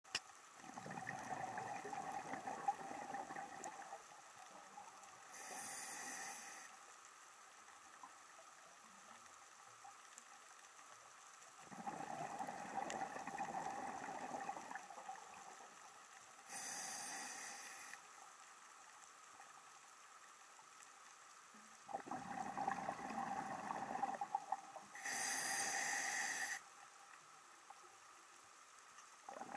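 A scuba diver breathing underwater through a regulator: three slow breaths about ten seconds apart, each with a gurgle of exhaled bubbles and a shorter hiss of air drawn through the regulator.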